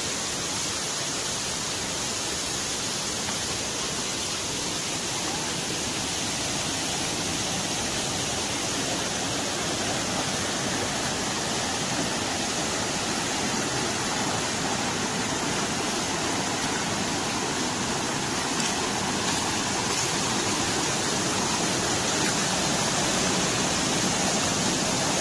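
A waterfall's water falling and rushing, a steady even hiss that grows a little louder toward the end.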